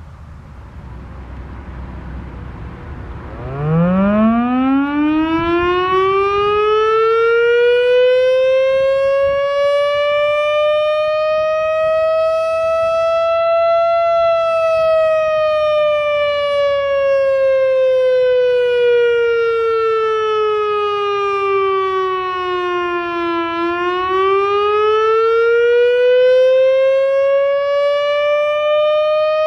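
Loudoun Masterblaster outdoor warning siren on its monthly test. After a low rumble, it winds up from a growl about three and a half seconds in to a high single tone over about ten seconds. It then slides down for about nine seconds and winds back up again in a wail.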